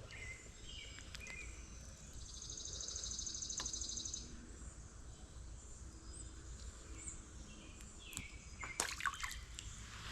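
Birds chirping outdoors, with a rapid high trill about two seconds in that lasts about two seconds, over a faint low steady rumble. A few sharp clicks and rustles near the end.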